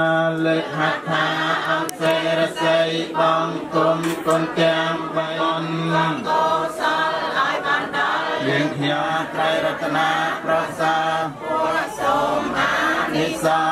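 Buddhist chanting by a group of voices in unison, with long held notes. The chant breaks off with a falling note about six seconds in and resumes about two seconds later.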